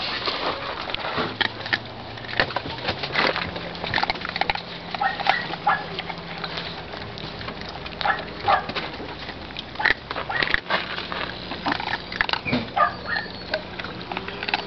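A young black-and-tan dog snuffling and licking close to the microphone while being petted, with many small clicks and rustles of handling and a few short nasal whines.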